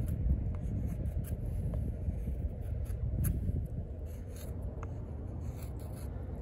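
Oerla OLK-033RD fixed-blade knife shaving bark and wood off a stick, with faint, irregular scraping and scratching.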